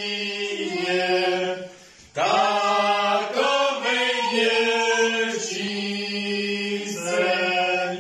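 A group of Easter carolers singing a folk carol together, holding long notes, with a brief pause for breath about two seconds in.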